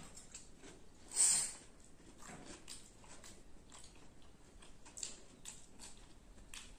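A person eating by hand: soft chewing and biting, with small clicks of fingers against steel bowls. One louder, noisier bite or crunch comes about a second in.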